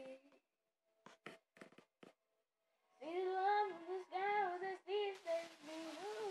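A child singing in a high voice, breaking off about half a second in. After a pause broken by a few short clicks, she sings again from about three seconds in, holding and bending notes.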